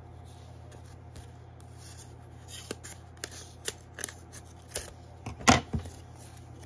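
A paper gift package being handled and opened by hand: scattered crinkles and clicks starting about two and a half seconds in, with the loudest knock about five and a half seconds in.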